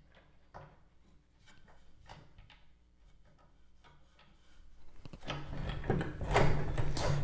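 Tubing cutter on a copper pipe: faint metal clicks as it is lined up and snugged on, then from about five seconds in a much louder scraping, clicking rasp as the cutter is spun around the pipe, its cutting wheel scoring the copper.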